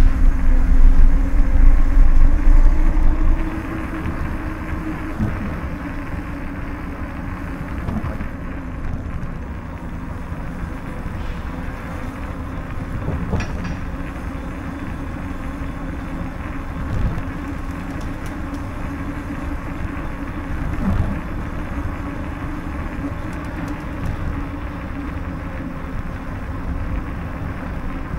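Bicycle rolling over a paved stone street: a steady rumble and rattle from the tyres and frame, with a few soft knocks from bumps. The low rumble is heavier for the first three seconds or so, then settles.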